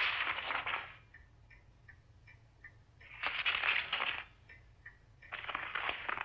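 Three dry, scratchy bursts of rustling or crumpling noise, each lasting about a second, with a faint clock-like ticking in the quiet gaps between them.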